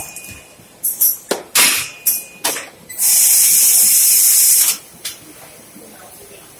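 Automatic carton top-sealing machine working: a quick series of short hisses and clacks, then a steady loud hiss for under two seconds that cuts off sharply.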